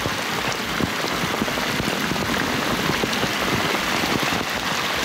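Heavy rain pouring down, a dense, steady patter of drops splashing on stone steps and paving.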